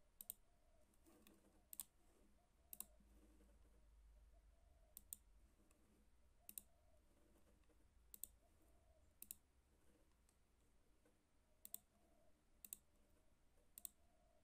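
Faint, sharp clicks of a computer mouse button as menu items are selected: about a dozen at uneven intervals, several in quick pairs, over near-silent room tone.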